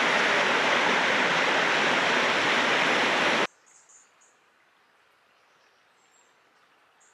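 A steady, loud rushing noise that cuts off abruptly about three and a half seconds in, leaving near silence with a few faint high chirps.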